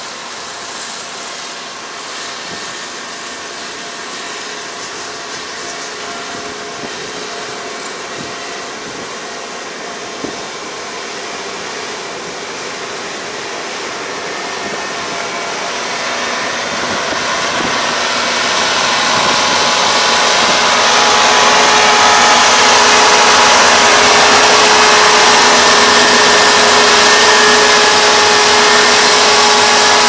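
Kubota ER470 crawler combine harvester running with a steady engine hum and whine. It grows louder from about halfway through as it drives closer, then stays loud.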